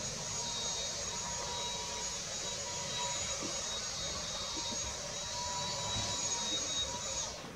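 Steady high-pitched electronic whine over a hiss from the Nikon Coolpix P900's own lens and stabiliser mechanism, picked up by its built-in microphone during a long zoom; the whine cuts out near the end.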